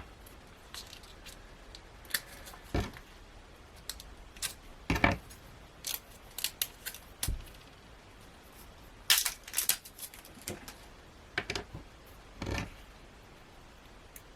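Irregular short clicks and rustles of packaged washi tape rolls being handled and unwrapped by hand, the strongest near the middle and late in the stretch.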